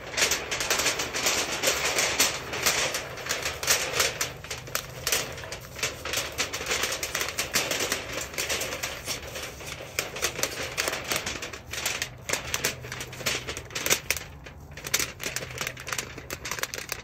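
Thin sheet metal of a portable roll-up stovepipe being rolled and handled, a fast, continuous run of clicking, crinkling rattles that eases off near the end.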